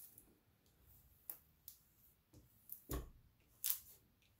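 Clear plastic protective film on a diamond painting canvas crackling in short, sharp clicks as a hand presses and smooths it, about half a dozen times, with a soft thud about three seconds in.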